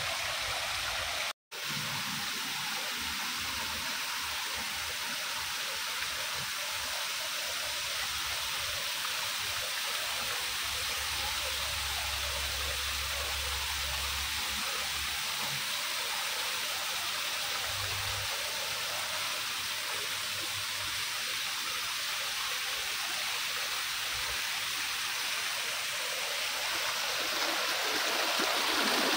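Water running and splashing over mossy rocks in small cascades, a steady rushing sound. It cuts out to silence for a moment about a second and a half in.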